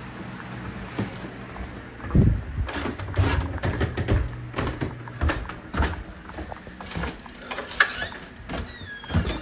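Electric fans humming steadily, then from about two seconds in an irregular run of thumps and knocks, with a short high falling squeak near the end.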